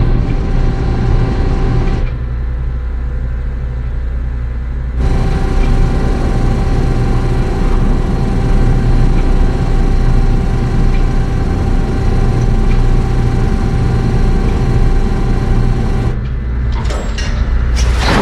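Motorized steel security shutters of a house lockdown system running: a loud, steady low mechanical rumble with a fixed hum. It thins to a quieter low rumble for about three seconds early on, then returns. Near the end come a few sharp clicks and a loud noisy burst.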